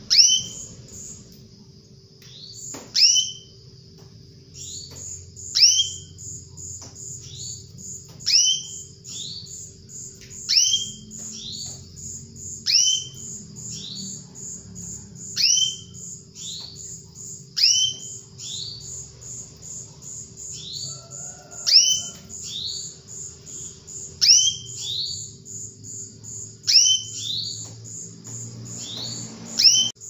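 Female canary calling: loud, short, downward-sweeping call notes repeated every second or two, some doubled, over a faint, fast, steady high twitter.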